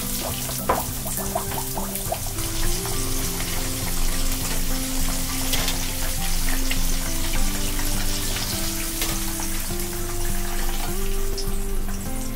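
Chicken cutlets deep-frying in oil: a steady crackling sizzle, with a sharp click about a second in, under background music.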